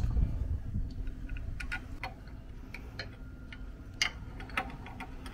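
Scattered light clicks and taps at irregular intervals, the loudest about four seconds in, as small hardware is handled at the winch motor's cable terminal: the lug, nut and washer going onto the terminal stud.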